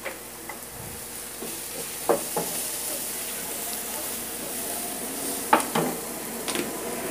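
Chopped onion sizzling in hot oil in a nonstick frying pan, with a wooden spatula stirring it and knocking against the pan several times, loudest about two seconds in and again about five and a half seconds in.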